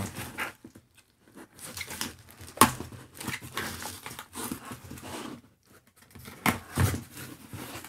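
A cardboard shipping box torn open by hand: packing tape ripping and cardboard flaps crinkling, with a few sharp cracks, the loudest about two and a half seconds in.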